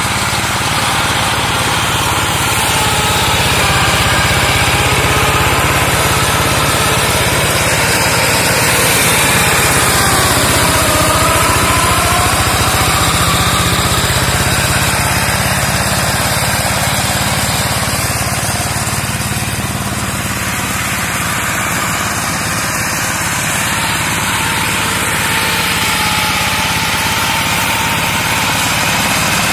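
Diesel engine of a walk-behind two-wheel hand tractor running steadily under load with a fast, even low pulse, driving a front-mounted mower through brush and undergrowth.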